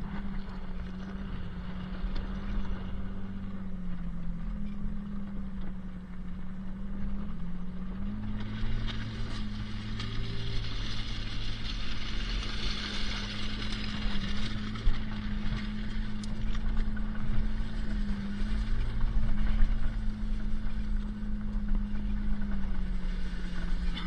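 Mitsubishi Pajero four-wheel drive running along a rough gravel track, heard from inside the cab: a steady engine hum whose pitch dips briefly and picks up again about a third of the way in. A rushing noise swells through the middle.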